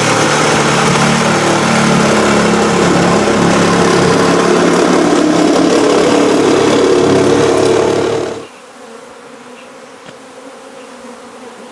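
A power saw runs steadily, cutting into the wall to open up the honey bee hive, and stops about eight and a half seconds in. The buzzing of the honey bees is left behind it.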